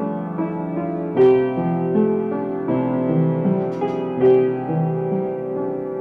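Piano being improvised on: sustained chords over a moving bass line, with louder struck chords about a second in and again just after four seconds.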